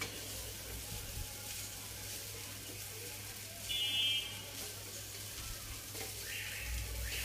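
Rice frying in a nonstick pan with a low, steady sizzle while a wooden spatula stirs and turns it, giving soft scraping strokes. The hiss gets brighter about six seconds in.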